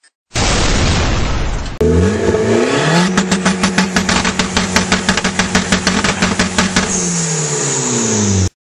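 A car engine revving: a loud hiss for about a second and a half, then the engine rises and is held at steady high revs with a rapid crackle, dropping back near the end before cutting off suddenly.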